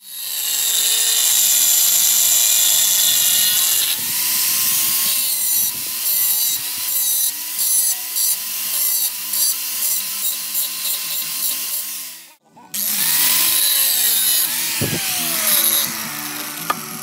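Handheld angle grinder grinding metal: a loud, steady grinding for the first few seconds, then uneven and pulsing as the disc is pressed on and eased off. It breaks off abruptly about twelve seconds in, starts again, and falls in pitch near the end.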